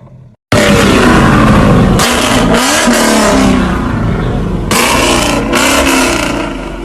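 A high-performance car engine revving hard, starting suddenly about half a second in. Its pitch rises and falls with the revs, and harsher bursts come about two and five seconds in.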